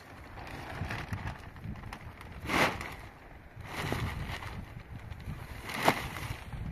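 Clear plastic sheeting rustling and crinkling as it is pulled and tucked by hand, with rocks set against it, over a steady buffeting of wind on the microphone. Two louder, sharp crackles or knocks stand out, about two and a half seconds in and again near six seconds.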